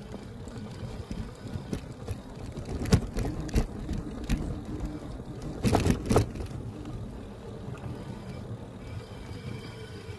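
Electric bike ridden off road: a steady low hum with knocks and rattles as it goes over bumps, the loudest about three seconds in and around six seconds in.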